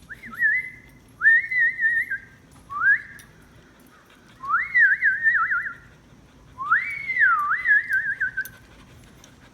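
An excited dog whining in high, wavering cries: five rising, warbling whines with short pauses between them.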